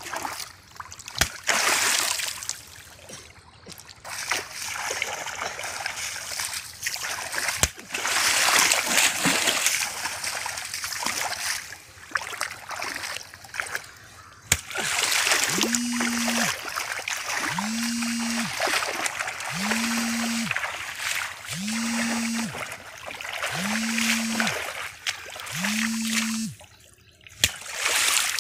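Shallow muddy water splashing and sloshing in uneven bursts as someone wades and gropes through it by hand, with a few sharp clicks. In the second half a low tone sounds six times, about two seconds apart.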